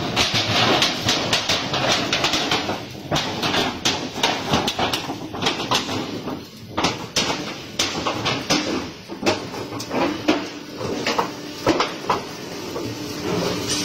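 Corrugated sheet roll forming machine running, a thin metal sheet passing through its rows of forming rollers: steady mechanical noise with many irregular sharp metallic clicks and knocks, and a faint steady hum in the second half.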